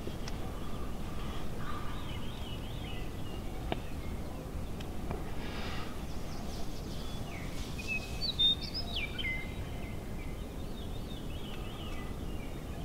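Small birds singing in short chirping phrases over a steady low wind rumble, with one louder burst of bird song about eight seconds in.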